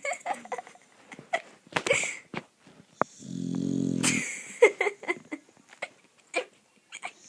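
A dog snoring loud: one long, low, buzzy snore lasting about a second, starting about three seconds in, with softer short breath noises and clicks in the pauses on either side.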